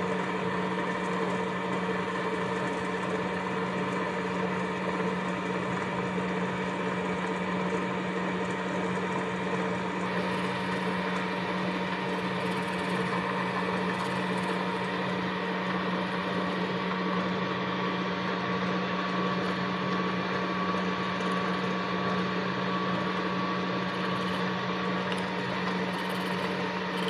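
Metal lathe running steadily with a constant hum while a sharp tool turns and peels a carrot held between chuck and tailstock at low speed. The machine cuts off right at the end.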